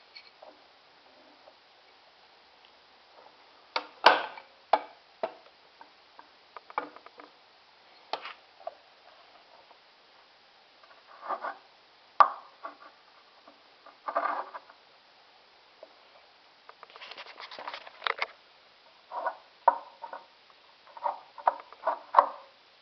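Scattered knocks, taps and light clatter as a length of metal EMT conduit is handled against a hinged 2x4 wooden frame: separate sharp hits with quiet gaps, and quick runs of taps about two thirds through and near the end.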